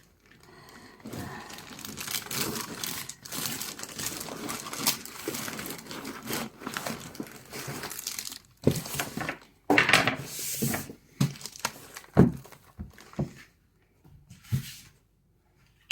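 Heat-sealed plastic wrapping crinkling and tearing as a device is unwrapped by hand: irregular rustling with a few sharper, louder crackles, thinning out in the last few seconds.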